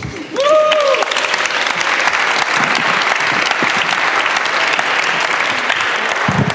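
Audience applauding steadily for several seconds, with a brief rising-and-falling call near the start.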